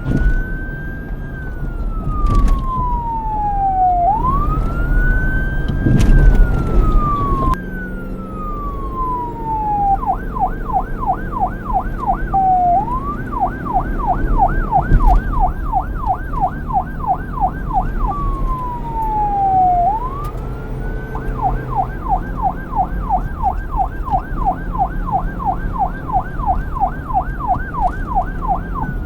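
Police car's electronic siren switching between a slow wail, rising and falling over a few seconds, and a fast yelp of about four or five pitch swings a second, over a low rumble. It wails at first, goes to the yelp about ten seconds in, wails briefly again, then yelps through the last eight seconds.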